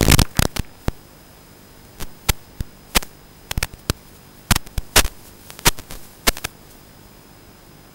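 Static on an analog FPV video link as recorded by the goggles: a steady hiss and hum broken by sharp irregular crackling clicks, with a dense burst of crackles right at the start, then scattered single clicks that stop for the last second or so.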